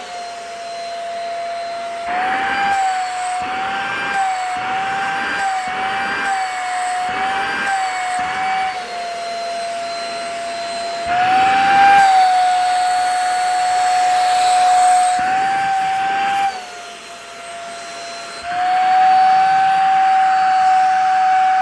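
Vacuum cleaner motor running with a steady whine that dips and rises slightly in pitch as a shirt is sucked into the nozzle. In the first third there are repeated bursts of rushing, slurping air about once a second, and it goes quieter for a couple of seconds near the end.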